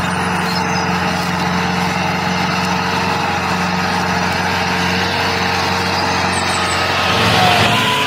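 An engine running steadily with an even hum, its note shifting slightly about seven seconds in.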